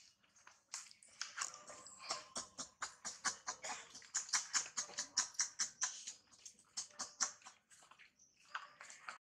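Dry leaf litter crackling and rustling as macaques move and forage on the ground, a rapid run of sharp crackles from about a second in until about seven seconds, then a short patch near the end.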